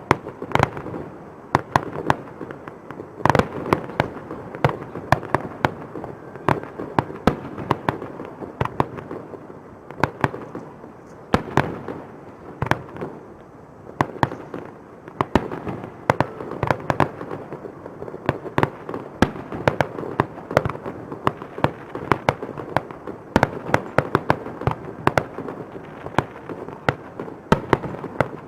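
Aerial fireworks display: a continuous barrage of shell bursts, many sharp bangs in quick irregular succession, over a steady rumble of echoing booms.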